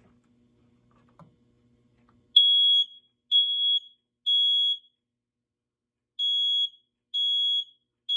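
BRK / First Alert smoke alarm's piezo horn sounding on test after a battery change: loud, high, half-second beeps in the temporal-three pattern, three beeps, a pause, then three more. It shows that the horn works on the new battery.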